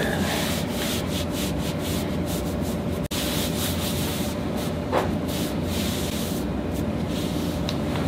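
Cloth rubbing and rustling in irregular strokes, with a steady hum beneath.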